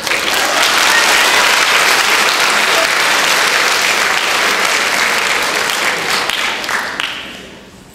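Theatre audience applauding, starting sharply and dying away about seven seconds in.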